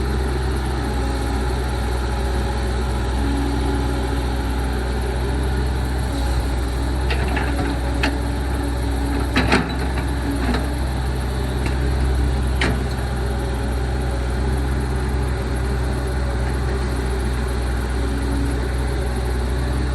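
Excavator's diesel engine running steadily, with a few sharp knocks in the middle, the loudest about halfway through.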